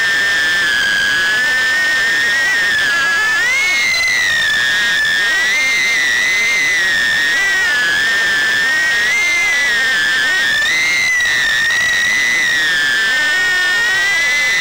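Happymodel Mobula6 HD 1S tiny whoop's brushless motors whining high and loud, the pitch wavering up and down as the throttle changes, heard close up from the drone's onboard camera.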